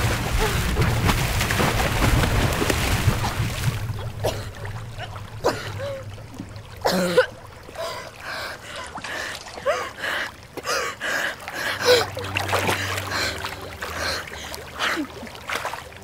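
Heavy splashing of a person thrashing in a swimming pool for about four seconds, then quieter sloshing and lapping water with short gasping breaths. A low, held music drone comes in about twelve seconds in.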